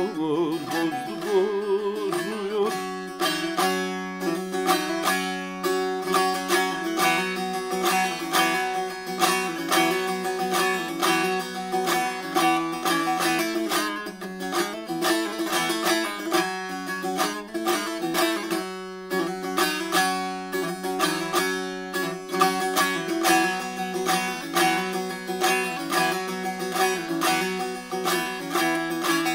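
Bağlama (Turkish long-necked saz) played solo in an instrumental interlude: a fast, busy run of plucked notes over a steady drone from the open strings. The last sung note fades out in the first two seconds or so.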